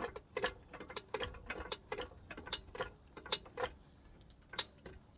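Car jack being worked to lift a car: a run of sharp metallic clicks, roughly three a second, with a short pause near the end.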